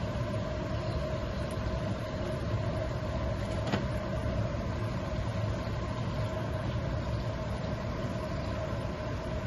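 Puris deep-frying in hot oil at about 180 °C, a faint sizzle over a steady low hum with a steady mid-pitched tone in it. There is a single click about four seconds in.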